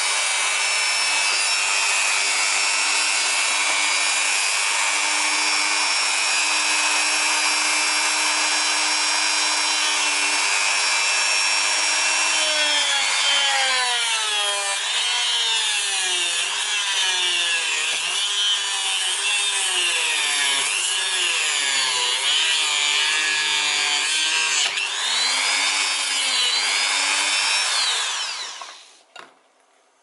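Dremel rotary tool with a 409 cut-off wheel whining at steady high speed. After about 12 seconds the wheel cuts into a wooden pencil, and the motor's pitch repeatedly dips under load and recovers. The tool then winds down and stops near the end.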